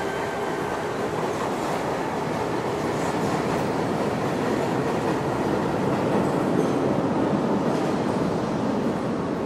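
Subway train running on the rails at a platform: a steady rumble that grows a little louder in the middle and eases again near the end.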